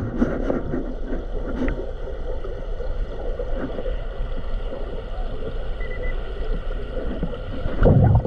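Underwater sound of a diver working a lakebed: a steady low rumble with rustling and faint ticks, and a louder low burst near the end.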